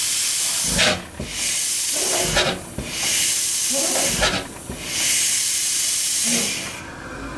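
Compressed starting air hissing through a 1910 Cooper-Bessemer single-cylinder two-stroke engine in four long blasts as its flywheel turns over, the gaps between them growing longer. The engine is being air-started but does not fire, with low thumps between the blasts.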